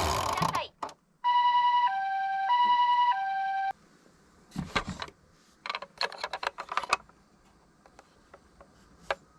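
Electronic two-tone ambulance siren of a toy minicar: a high note and a lower note alternating twice, 'pee-po, pee-po', cutting off suddenly. It is followed by a few scattered light clicks and knocks.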